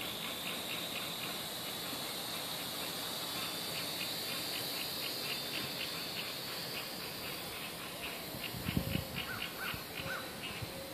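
A WLtoys V959 quadcopter's small electric motors and propellers spin up to a steady high-pitched whine as it lifts off the lawn and hovers. Low gusty rumbles come in near the end.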